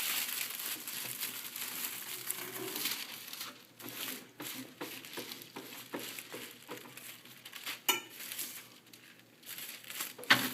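Plastic laminating film crinkling as it is handled and fed under the laminator's bar, followed by scattered clicks and knocks of the machine's parts, with a sharp click about eight seconds in.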